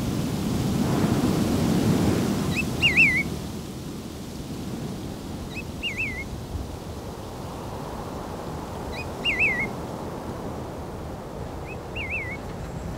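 A songbird repeats the same short whistled call four times, about every three seconds: a brief rising note, then a quick warble. Behind it runs a steady rushing noise, louder over the first couple of seconds.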